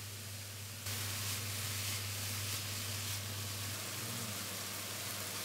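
Shimeji mushrooms and samphire sizzling in hot oil in a frying pan, a steady hiss that gets louder about a second in.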